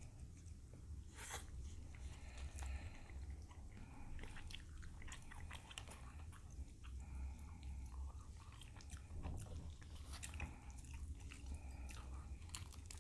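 Close-miked chewing and biting of grilled king crab leg meat, with scattered small clicks and crunches, over a steady low hum.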